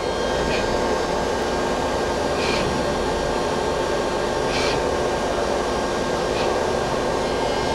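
Citizen L-20 Swiss-type CNC lathe running with a steady whirring hum, with four short, higher-pitched whirs about two seconds apart as its gang tool plate moves in X and Y.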